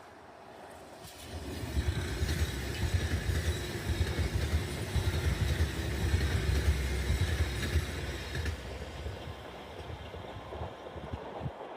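Six-car KiHa 261 series diesel limited express passing at speed: the rumble of wheels on rail and the diesel engines builds about a second and a half in, stays loud for about seven seconds, then fades as the train moves away.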